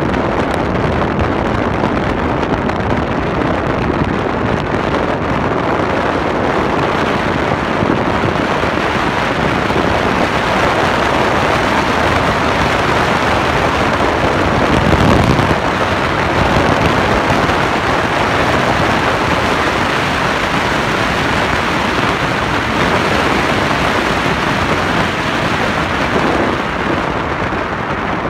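Steady rushing wind buffeting the microphone, with a dirt bike's engine running under it; the noise swells briefly about halfway through.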